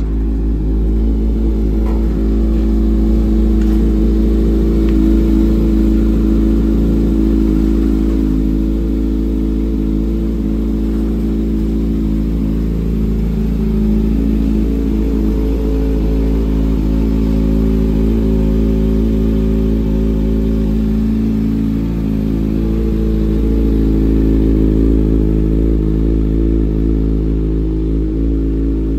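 2022 Kawasaki Ninja ZX-6R's 636 cc inline-four, fitted with an M4 slip-on exhaust, idling steadily.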